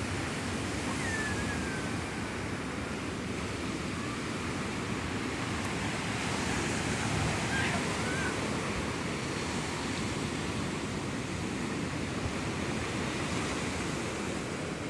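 Sea surf washing onto the shore, a steady rush that swells and eases slowly.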